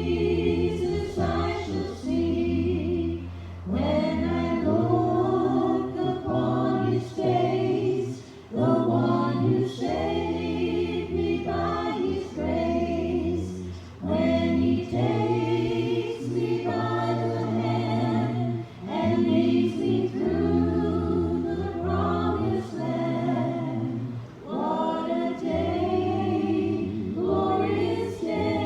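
A group of voices singing a hymn together in sustained phrases.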